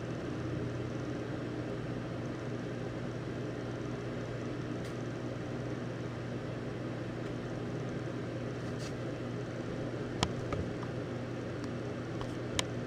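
Steady low hum over a constant hiss, with a few short sharp clicks near the end.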